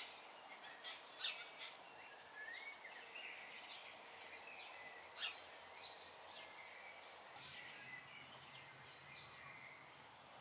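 Faint outdoor birdsong: scattered chirps and short whistled calls from several birds, with a warbling phrase about two to three seconds in.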